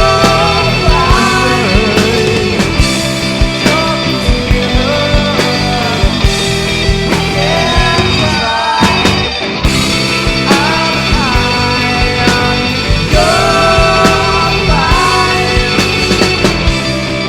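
Multitrack rock recording played back through a mixing desk: a full band with a steady drum beat and a bending lead melody running throughout.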